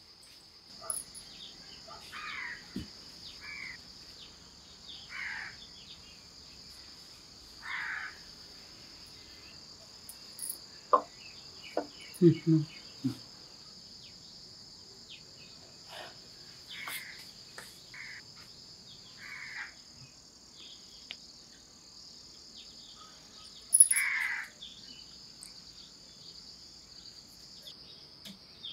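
Steady high-pitched trilling of crickets, with a few short bird calls scattered through. A few brief knocks come around the middle, and a sudden sharper sound with a call near the end is the loudest moment.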